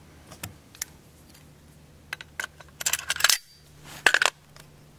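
Metal clicks and clatter of AR-15 rifle parts being handled during reassembly. There are scattered single clicks, then bursts of clatter about three seconds in and again about four seconds in.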